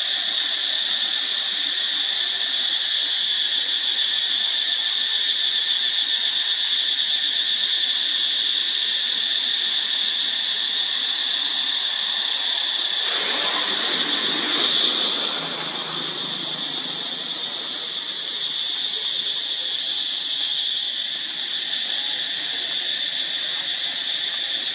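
Steady, high-pitched drone of insects, with a brief surge of broad rustling noise a little past halfway.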